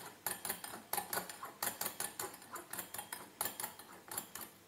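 Hand whisk beating egg whites and sugar in a glass bowl: rapid, uneven clinks of the utensil against the glass, several a second.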